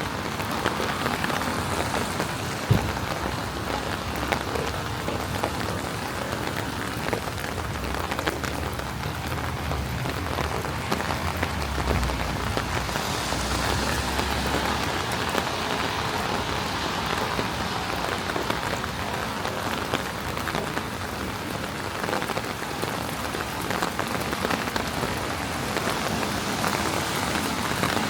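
Steady rain falling on a wet city street. A low rumble builds and fades from about eight to fifteen seconds in, and there is a single sharp knock about three seconds in.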